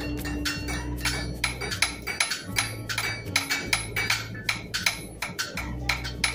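Several blacksmiths' hammers striking metal on anvils, sharp ringing blows overlapping at an irregular pace, several a second. Underneath, a low hum cuts in and out.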